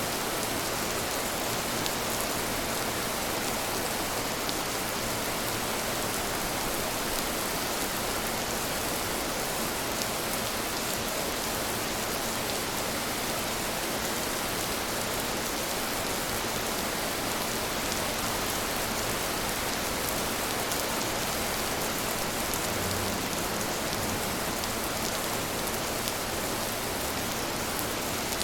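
Steady rain falling on a surface, a constant hiss with scattered individual drops ticking through it.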